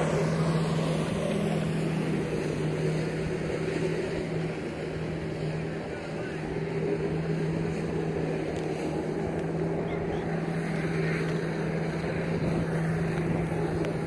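Jet ski engine running steadily at high power, pumping water up the hose to a flyboard, heard as a constant hum and drone.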